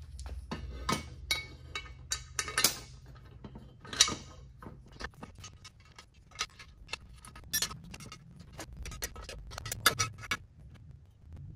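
Metal engine parts and hand tools clinking and knocking against a steel engine stand and workbench during engine assembly: a rapid, irregular run of sharp metallic clicks, with the loudest knocks about four seconds in and again near ten seconds.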